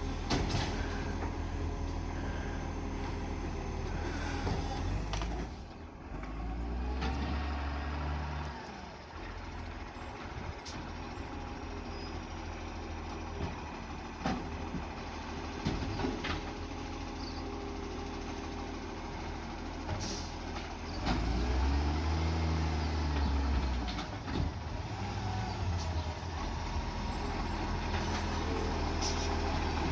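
Diesel engine of a recycling garbage truck running with an exhaust leak, revving up twice for a few seconds each, with short air-brake hisses and knocks in between.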